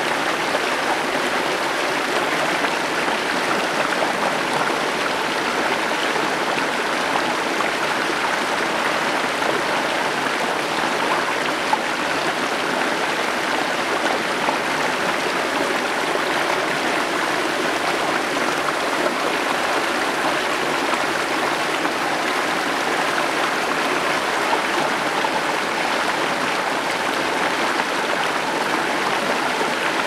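Small mountain stream running shallow over stones and through little cascades, a steady rushing babble with no change throughout.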